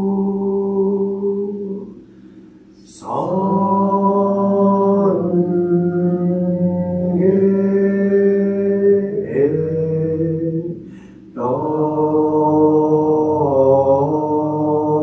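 A Buddhist priest's voice chanting in long held notes that step slowly up and down in pitch, with short pauses for breath about two seconds in and again about eleven seconds in.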